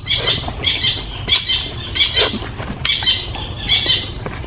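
A man chewing and smacking his lips loudly while eating frog meat and rice by hand, in an even rhythm of about one chew every two-thirds of a second, with sharp crunchy clicks.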